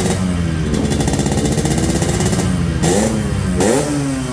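Yamaha RX-King's two-stroke single-cylinder engine running through its stock muffler, rebuilt with two new baffles to sound close to original but with a crisp edge. The revs sink slowly, then two quick throttle blips come about three seconds in, one right after the other, and the revs fall away again.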